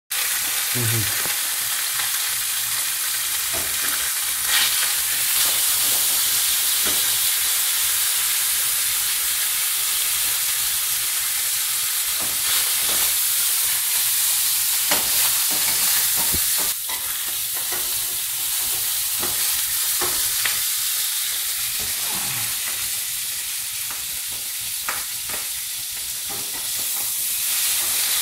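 Bonito tuna pieces sizzling steadily in oil in a hot frying pan, with a few clicks and scrapes of a metal spatula and slotted spoon against the pan as the fish is turned.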